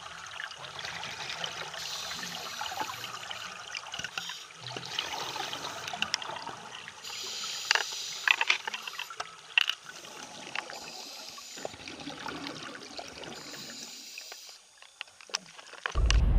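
Scuba breathing heard underwater: bubbles from a diver's regulator gurgling and hissing in bursts every few seconds, with a few sharp clicks. Just before the end a loud low rumble cuts in suddenly.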